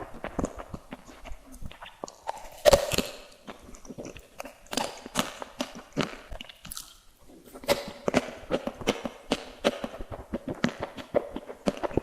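Close-miked eating of sweets: bites and chewing making a rapid, irregular run of crisp crunches and clicks. The loudest bite comes about two and a half seconds in.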